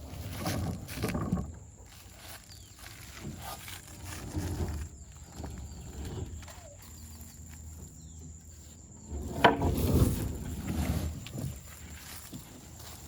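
Irregular knocks, scrapes and rustling from gear being handled, with one sharper, louder knock about halfway through.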